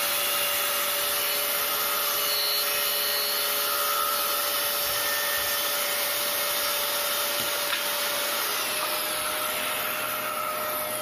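Shop vacuum running steadily through a hose connected to a SKIL circular saw's dust port. Just before eight seconds in there is a click, followed by a faint whine falling in pitch.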